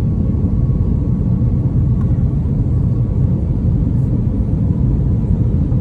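Steady low rumble of a passenger airliner's cabin noise, engines and airflow heard from inside the cabin in flight.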